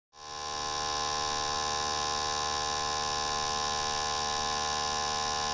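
Fuel-injector flow-test machine running, its injectors firing rapidly to spray test fluid into graduated cylinders with a steady electric buzz that swells in over the first second.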